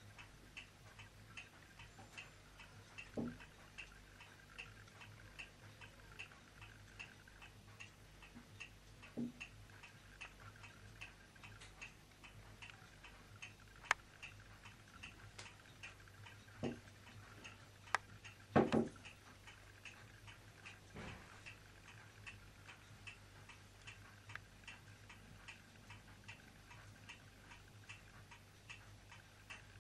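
A clock ticking steadily, about two ticks a second. Now and then a soft knock or a sharp click from the kitten moving about on a wooden table; the loudest is a double knock about two-thirds of the way through.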